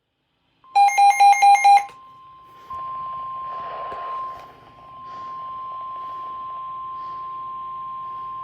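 Weather radio emergency alert: five quick, loud beeps, then the NOAA Weather Radio warning alarm tone, one steady high tone held unbroken. The tone is the attention signal that comes before a warning message is read.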